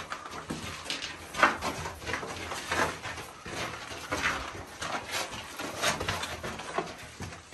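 Footsteps scuffing and knocking on rock, irregular and uneven, with several sharper knocks along the way.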